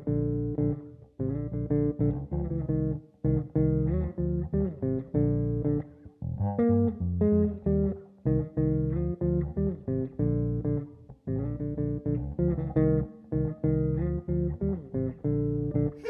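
Solo electric bass guitar playing a melodic line of plucked notes, some sliding in pitch, in short phrases with brief breaks between them.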